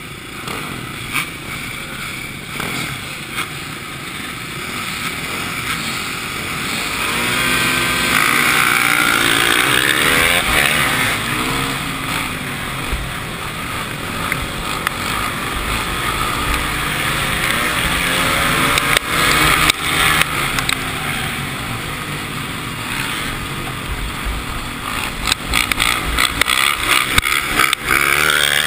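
Yamaha WR450F's four-stroke single-cylinder engine racing on a dirt speedway track, heard close up from the bike, its pitch rising and falling as the rider works the throttle. Other dirt bikes run close by.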